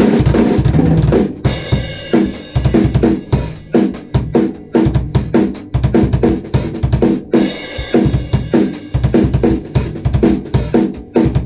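Mapex M-Birch drum kit played in a fast, busy groove of bass drum, snare and tom strikes, with crash cymbal accents at the start, about a second and a half in, and again past the middle.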